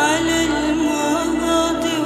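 Vocal deep house music: a wavering sung line comes in right at the start over held synth chords and a steady bass.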